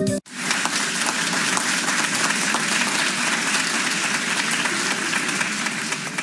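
Music cuts off sharply a moment in, and a crowd's applause follows: many hands clapping densely and steadily.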